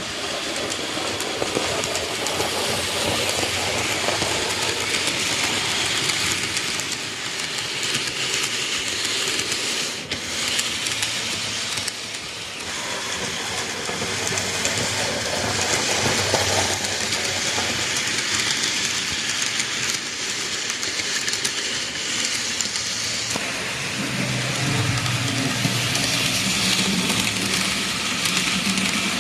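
Micro Ace model railway train, the C11 171 steam locomotive model hauling container wagons, running on model track: a steady rattle of small wheels on the rails. A lower rumble joins in near the end.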